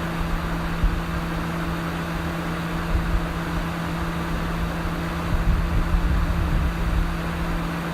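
Car engine idling steadily with a constant hum and a low rumble that swells slightly now and then.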